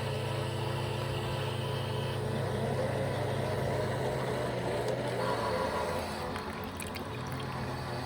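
Several toy washing machines running together, their small electric motors humming steadily as the drums turn. The motor tones shift a couple of times.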